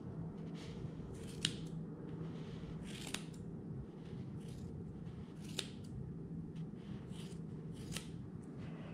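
Small scissors snipping through thick angora rabbit wool, about ten sharp snips at uneven intervals, roughly one a second.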